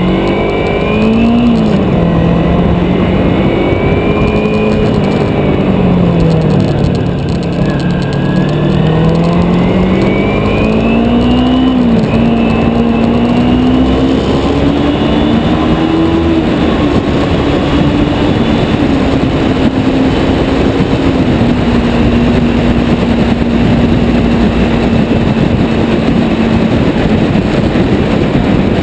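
Kawasaki Ninja 250 motorcycle's parallel-twin engine pulling up through the gears. Its pitch rises and falls several times, with a sudden drop about twelve seconds in at a gear change, then holds a nearly steady note while cruising through a road tunnel.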